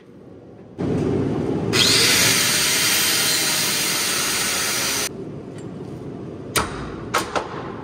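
Angle grinder cutting steel at a trailer's axle mount. It starts up about a second in and bites into the metal with a loud hiss for about three seconds, then runs on more quietly. A few sharp knocks come near the end.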